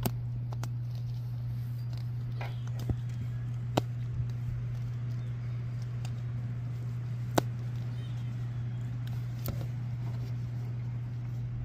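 Hard plastic Mini Brands toy capsule ball being handled and picked at with the fingers to break its seal, giving a few sharp, scattered clicks and taps, over a steady low hum.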